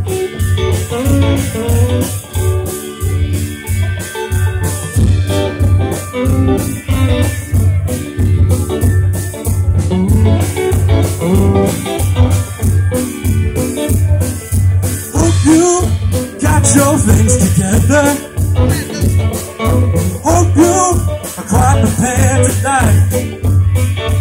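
Live band playing through PA speakers: drum kit keeping a steady beat under electric guitars and bass guitar.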